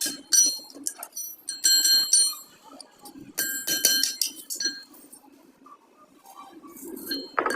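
Clusters of sharp metallic clinks that ring on briefly, as metal parts or tools strike each other, with a quieter gap before a last clink near the end.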